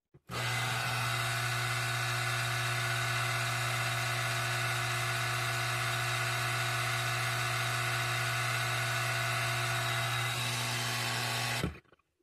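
Channel Master 9512 antenna rotator control unit buzzing steadily with a strong electrical hum once its direction dial is turned. The buzz starts and stops abruptly.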